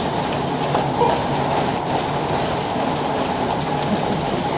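Heavy rain falling: a steady, dense rush of water.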